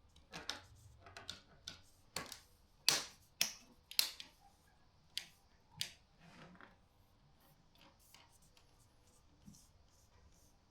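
Car roof gutter moulding being pressed into its channel: a series of sharp plastic clicks and snaps, most of them in the first six seconds and fewer after.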